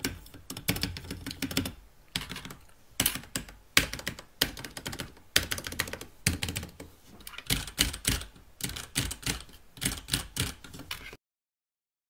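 Typing on a stock, unmodded Ducky One 2 Mini mechanical keyboard: rapid key clacks in bursts with short pauses, cutting off abruptly near the end.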